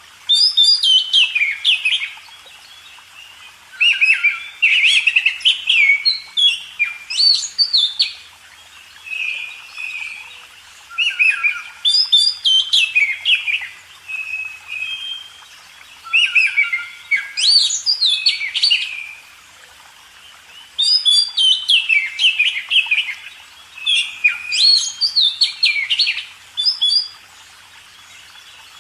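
House sparrow chirping in repeated bursts of rapid, falling notes, each burst a second or two long with short pauses between.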